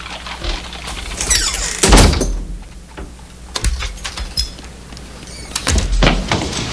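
A wooden door being opened and shut: a rising creak, then a heavy thud about two seconds in, followed by a few further knocks and clicks near the end.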